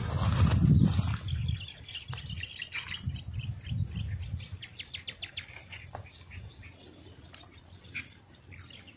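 Low thumps and rustling from movement through vegetation, loudest in the first two seconds and fading out about halfway through, with birds chirping in quick runs of short high notes.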